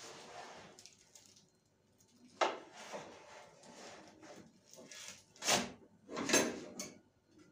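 Wooden spatula scraping and knocking in a frying pan as a börek is turned, a few separate strokes, the loudest two near the end, after a soft hiss in the first second or so.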